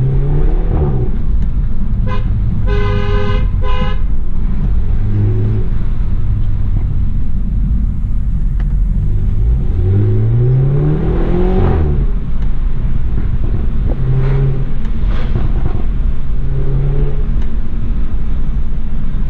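BMW 320i's B48 turbocharged four-cylinder engine running under way, its note rising as it pulls hard through a gear about ten seconds in and dropping abruptly at the upshift. A car horn honks in two short blasts about three seconds in.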